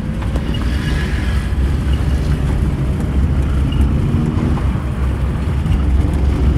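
A car driving, heard from inside the cabin: a steady, loud low rumble of engine and road noise.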